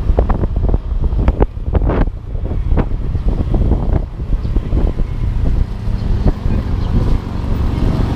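Wind buffeting the action camera's microphone in irregular thumps and rumble while riding a motor scooter, with the scooter's engine and road noise running underneath.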